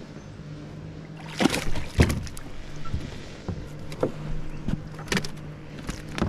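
A hooked peacock bass splashing at the surface beside plastic kayaks as it is brought in and lifted out, with a series of sharp splashes and knocks, the loudest about two seconds in.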